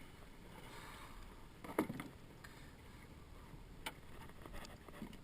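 Faint water lapping against a small fishing skiff on light chop, with a knock about two seconds in and a sharp click near four seconds.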